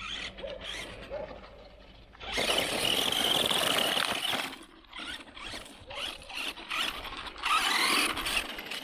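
Redcat Blackout XTE electric RC truck running at speed in two bursts of about two seconds each: a high whine from the motor and gears over the rush of its tyres on the ground, with lighter drivetrain noise between the bursts.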